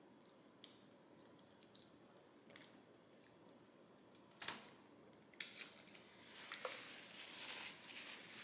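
A few faint clicks in near silence, then from about halfway a paper napkin rustling and crinkling in the hands as they are wiped.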